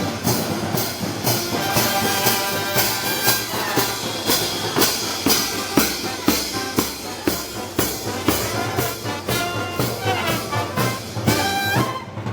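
Brass band music, trumpets and trombones over drums keeping a steady beat of about two strokes a second.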